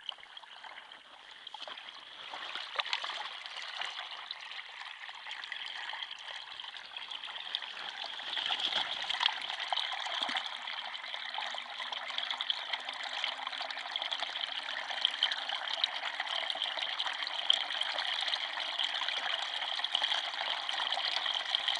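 Water standing on river ice trickling and gurgling as it drains down through a small hole in the ice, like a bath emptying. It grows louder over the first several seconds, then runs on steadily.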